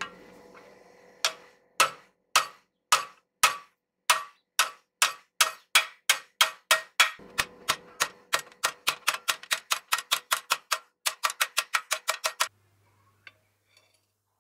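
Hand hammer striking a flat piece of steel on a steel anvil, each blow with a short metallic ring. The blows start at about two a second, speed up to four or five a second, then stop suddenly near the end, leaving a couple of faint clicks.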